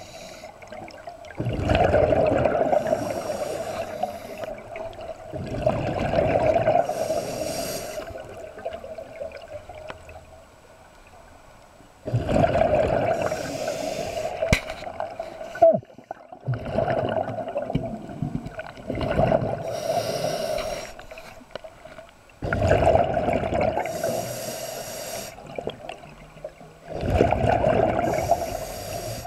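Scuba diver breathing through a regulator underwater: exhaled bubbles rush out in bursts of two to three seconds, about every four seconds, with quieter pauses between.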